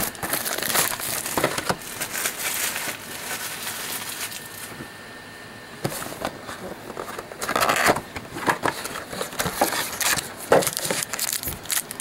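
Plastic wrapping on a trading-card box and its packs crinkling and tearing as it is torn open and handled, in irregular bursts with a louder flurry about two-thirds of the way through.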